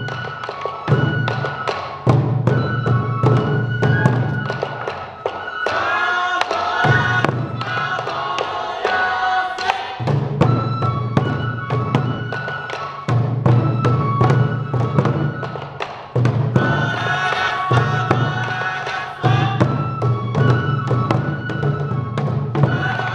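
Sansa odori festival music: many taiko drums beaten in a fast, steady rhythm under a high bamboo flute melody. Voices join in with a chant twice, about six seconds in and again past the middle.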